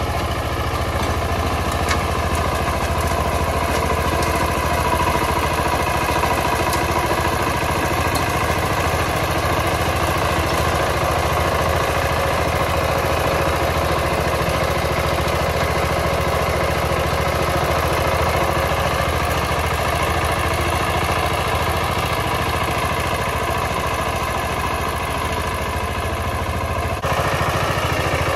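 VST Shakti 130 DI power tiller's single-cylinder diesel engine running steadily under load as its rotary tines till dry soil.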